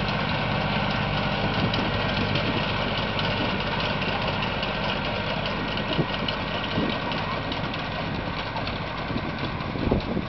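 Compact tractor engine running steadily as it tows a beach-cleaning sand sifter past, fading slightly near the end as it pulls away.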